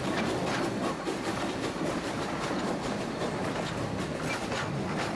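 A passenger train hauled by a small saddle-tank steam locomotive rolls past at low speed, the coach's wheels clicking over the rail joints in an irregular, steady clatter.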